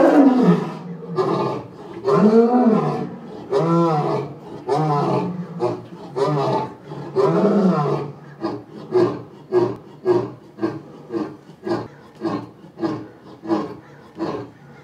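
Adult male lion roaring: about six long, loud roars, then a run of shorter grunts about twice a second that grow fainter. This is the typical trailing end of a lion's roaring bout.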